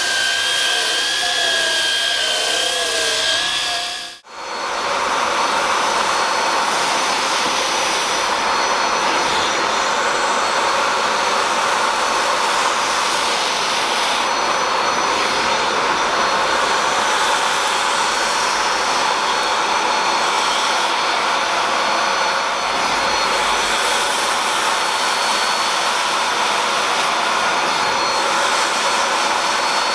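Cordless drill spinning a scrubbing brush on a cloth car seat, its motor whine wavering in pitch, stops after about four seconds. Then a vacuum with a clear upholstery nozzle runs steadily over the seat fabric, a loud steady hiss with a faint whine.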